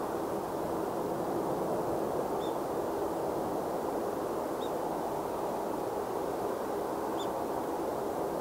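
Steady, distant noise of the Airbus A330-200's twin jet engines running at take-off power. Three short, high bird chirps come through over it, a couple of seconds apart.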